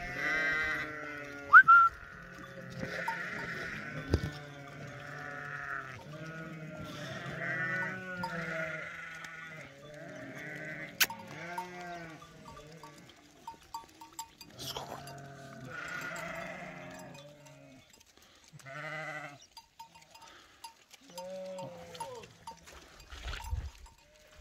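A flock of sheep bleating, many short overlapping calls one after another, with small light clinks in the second half.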